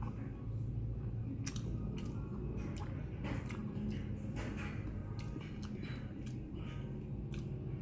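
A person chewing a mouthful of sushi, with many short wet mouth clicks, over a steady low hum.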